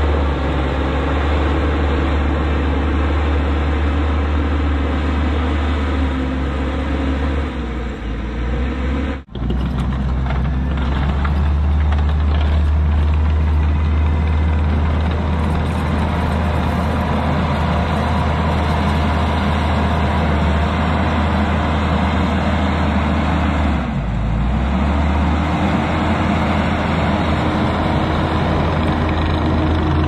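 Diesel engine of a Kubota SVL90 compact track loader running steadily as the machine grades a dirt pad with a grader attachment. The sound drops out sharply for a moment about nine seconds in.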